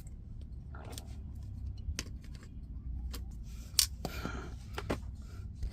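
Handling noise: scattered light clicks and a brief rustle about four seconds in, over a steady low hum.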